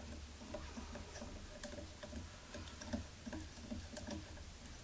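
Acme lead screw being turned by hand through its Acme nut, giving faint, irregular small ticks as the threads engage.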